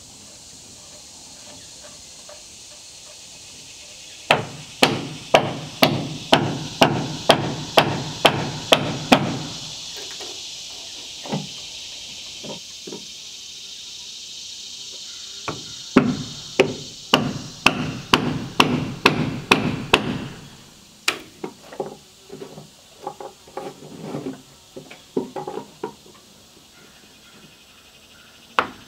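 Hammer striking wooden deck boards, likely driving nails, in two quick runs of about two blows a second, with scattered lighter taps between and after.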